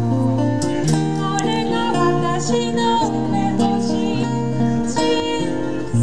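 Live music: a woman singing a slow, held melody over guitar accompaniment.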